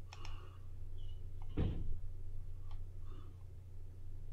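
A few faint mouse clicks and a single soft thump about one and a half seconds in, over a steady low hum.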